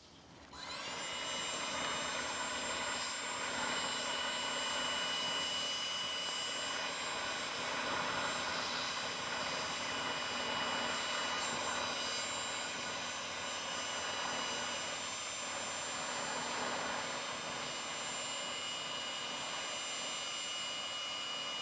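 Battery-powered heat gun running steadily, its blower giving an even rush with a whine of several steady tones, switched on about half a second in, shrinking heat-shrink wire connectors.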